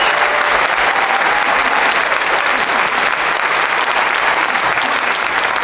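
Theatre audience applauding steadily.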